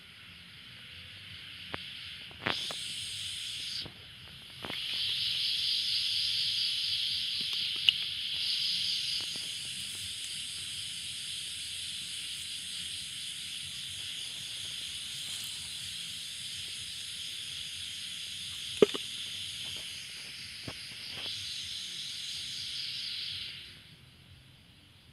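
A high-pitched, steady, rasping trill, typical of a calling night insect, that starts suddenly, breaks off for a moment near the start, resumes, and cuts off shortly before the end. A few sharp clicks and knocks sit on top of it.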